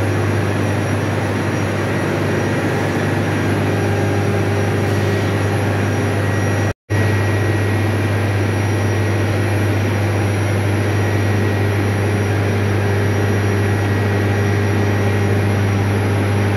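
Steam turbine and generator running: a loud, steady machine drone with a few faint, high steady whistling tones above it. The sound breaks off for an instant about seven seconds in.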